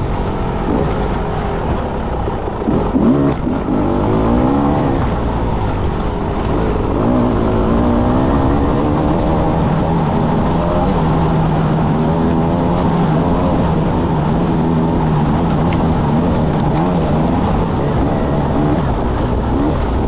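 Enduro motorcycle engine under way, revs rising and falling as the throttle is worked, with a few sharp knocks about three seconds in; through the second half it holds steadier revs.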